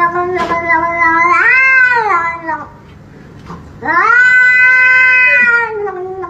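A grey shorthair cat yowling in two long, drawn-out meows: the first rises in pitch and then drops away at its end, and the second starts a little under four seconds in and slowly falls in pitch.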